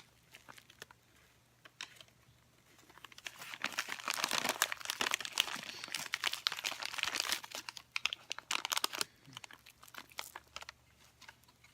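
Packing material being unwrapped by hand, a stretch of crinkling and rustling that starts a few seconds in and dies down near the end, after a few light clicks.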